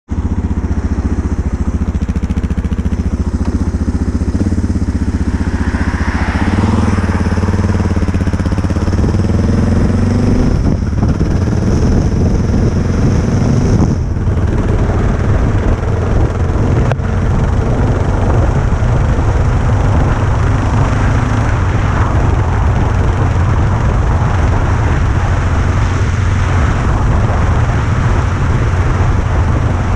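Motorcycle engine running: steady for the first few seconds, its pitch rising between about six and ten seconds in, then a steady, rougher run with a lot of hiss over it.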